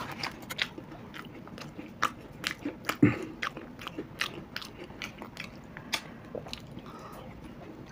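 Crisp fried snacks, pakora and papad, being bitten and chewed: irregular crunches and crackles, the loudest a little after three seconds in.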